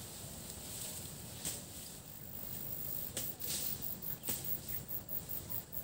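Outdoor insect chorus in tall grass: a steady high buzz, with a fast, even high-pitched pulsing coming in about halfway through. A few sharp clicks cut across it, and there is a low rumble of wind or handling noise underneath.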